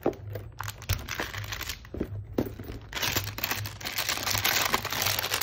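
Clear plastic wrapping crinkling and rustling as it is handled, with a few light knocks in the first couple of seconds and denser crinkling from about three seconds in.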